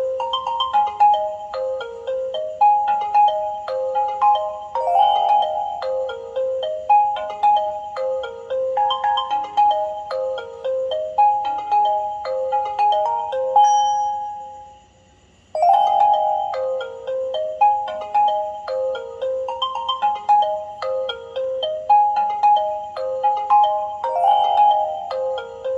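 LG Classic Flip ringtone playing: a quick melody of short notes that repeats. About halfway through the phrase ends on a held note, goes quiet for about a second, and the ringtone starts over.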